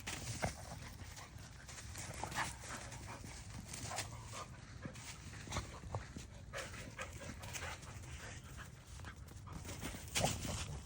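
Dogs moving about close by, with scattered short clicks and knocks.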